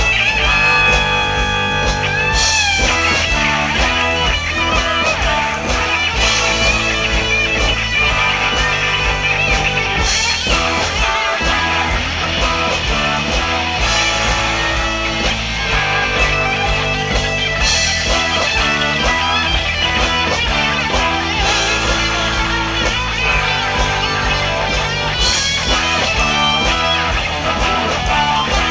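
Live band playing an instrumental passage: an electric guitar leads, with bent notes, over electric bass and drums, and no vocals.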